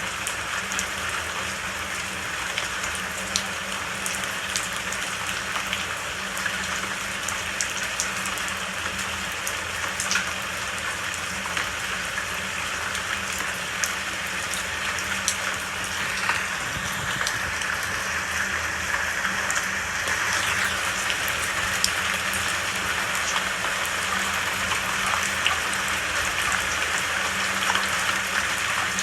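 Steady rain falling, with individual drops ticking sharply on a hard surface above the even hiss, growing slightly louder about two-thirds of the way through.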